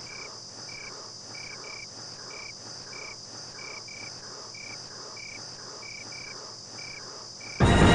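Crickets chirping: short high chirps repeating about every half second, some in pairs, over a steady high hiss. A sudden loud sound cuts in just before the end.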